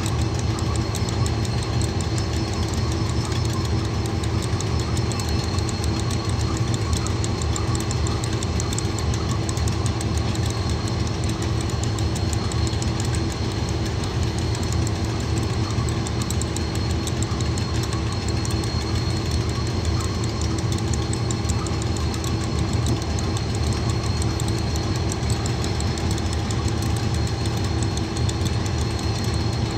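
KiwiRail DX class diesel-electric locomotive running at idle, with a steady low drone and a thin high whine on top, as it turns on a railway turntable.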